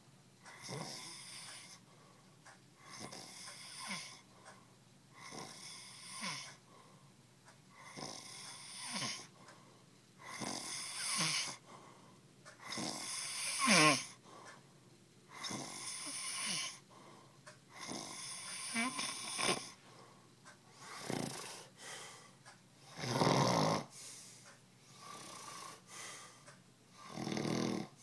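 A person passed out drunk, snoring: uneven snores, one about every one to two seconds, some louder than others.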